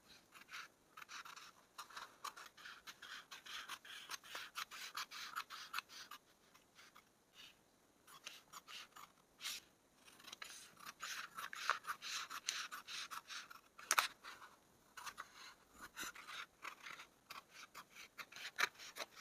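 Scissors cutting through cloth: quiet, crisp snips and the blades sliding along the fabric, in runs with short pauses. There is one sharper click about two-thirds of the way through.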